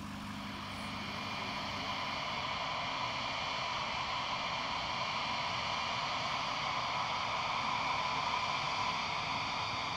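Airbus A220-100's Pratt & Whitney PW1500G geared turbofans running at taxi power: a steady jet hiss with several held whining tones, growing slowly louder.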